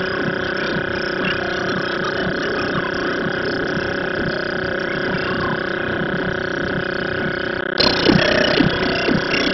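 A steady hum made of several fixed tones, with irregular low thumps under it; near the end it changes abruptly to louder, rougher noise.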